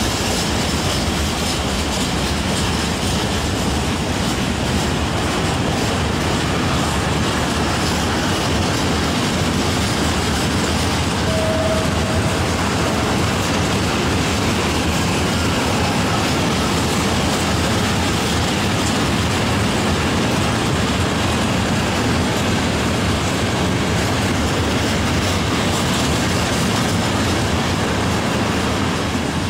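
Freight train of open coal wagons passing close by, with a steady rumble of steel wheels on the rails.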